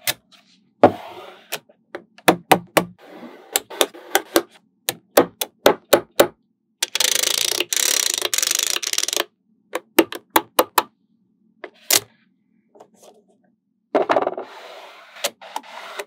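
Small magnetic balls clicking sharply into place one after another as a structure is built from them, with a dense rattling clatter of many balls for about two seconds midway.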